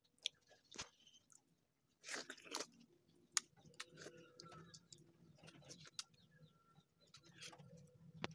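A person biting and chewing a fried snack close to the microphone: a louder crunch about two seconds in, then soft chewing with many small mouth clicks.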